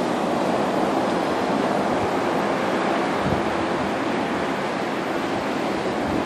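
Storm surf breaking on the beach at high tide, a steady rush of waves mixed with wind.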